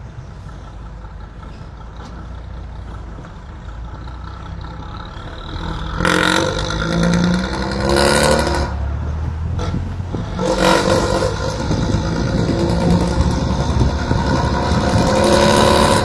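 Mercedes-Benz 1114 city bus's inline-six diesel engine, its deep snore (ronquido) pulling under load. It runs low at first, then about six seconds in it grows loud and climbs in pitch. It drops briefly as it shifts gear and climbs again to the end.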